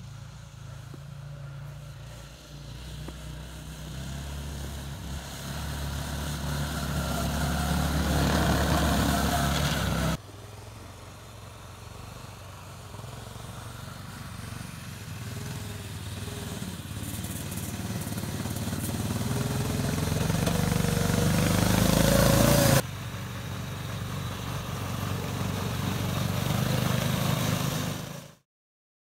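Small youth snowmobile engine running and growing steadily louder as the sled approaches, its pitch rising as it speeds up. This happens in three stretches, each cut off abruptly, and the sound stops suddenly near the end.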